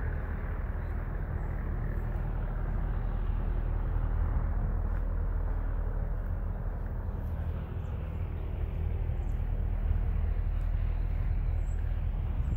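Engines of a working DC-3 aircraft running, heard as a steady low drone.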